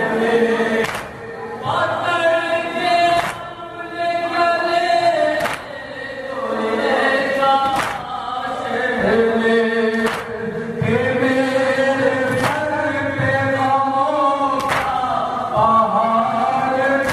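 Men chanting a noha, a Shia lament, in group call-and-response. Sharp slaps of hands on chests (matam) land at a steady beat, about one every two seconds.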